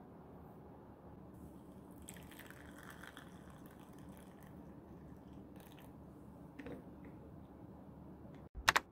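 Hot water poured from a kettle into a porcelain cup of instant coffee, a soft trickling hiss about two seconds in, then a spoon stirring with a few light clinks against the cup. A single sharp click comes near the end.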